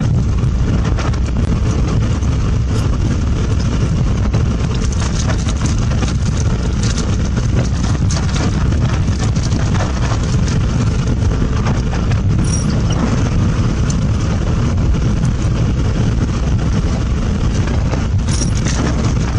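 Steady low rumble of a vehicle driving along a paved road: engine and tyre noise heard from on board.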